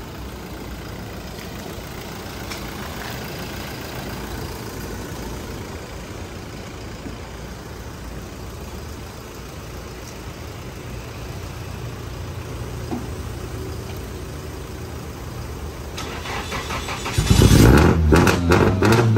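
Nissan Silvia's SR20 four-cylinder engine: a low steady hum, then about 17 seconds in it jumps to a loud run and is revved, its pitch rising and falling. It is running after sitting unstarted for ten days and is judged still healthy.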